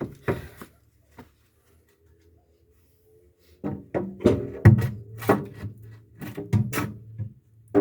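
A few light knocks in the first second or so, then background music with a steady beat comes in about halfway through.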